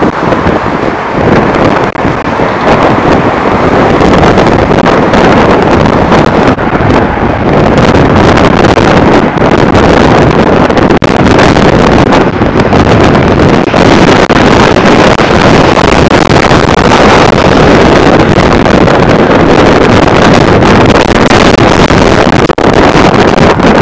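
Loud, steady rushing noise of wind buffeting the microphone, mixed with freeway traffic.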